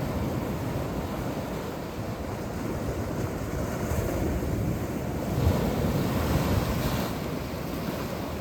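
Sea waves washing and breaking on the shore in a continuous rush, one wave swelling louder a little past halfway, with wind rumbling on the microphone.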